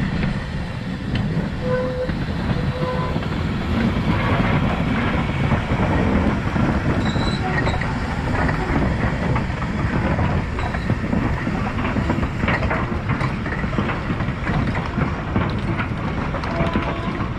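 LMS Ivatt Class 4MT 2-6-0 steam locomotive 43106 hauling a goods train past, a steady rumble of engine and wagons. In the second half the wheels of the open goods wagons click over the rail joints.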